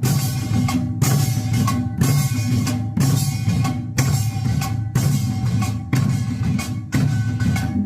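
Korean buk barrel drums playing a Yeongnam nongak rhythm, with a heavy stroke about once a second and lighter strokes between.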